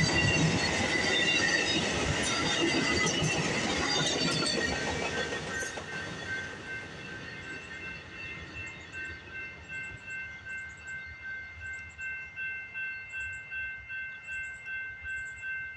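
Amtrak GE P42DC diesel locomotive and its passenger train passing with wheel clatter on the rails, fading as the train moves away. In the second half a high ringing tone repeats about twice a second.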